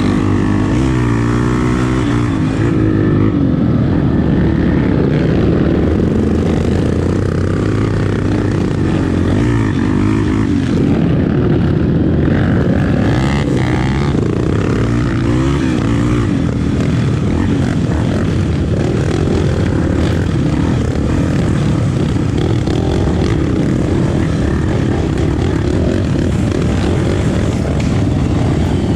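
300cc Honda Tornado trail motorcycle engine running under way, its engine speed rising and falling several times as the rider works the throttle.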